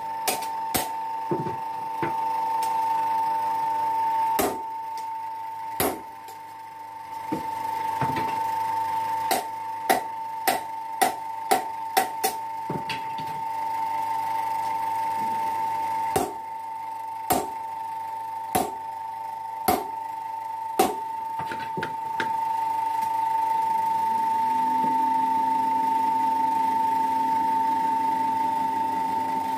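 Belt-driven mechanical forging hammer (power hammer): its electric motor and belt run with a steady whine while the ram lands single sharp blows at irregular intervals, a quick run of them about half a second apart in the middle. About three-quarters of the way through, a second, lower motor hum spins up and holds.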